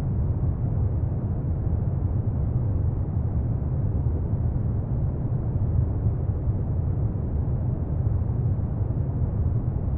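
A steady, deep rumbling noise that stays even throughout, heaviest in the bass and without any tones or separate events. It is like brown noise; no oud or other music can be made out.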